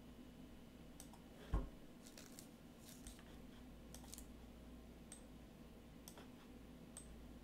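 Faint, scattered clicks of a computer mouse and keyboard, about one a second, with one louder low thump about one and a half seconds in.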